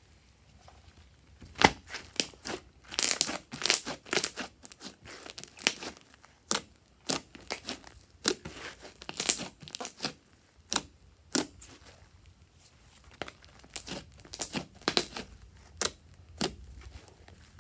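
Fluffy slime being squished and pressed by hands, giving off irregular sharp wet snaps and crackles as the air pockets in it pop, densest about three seconds in and easing off near the end.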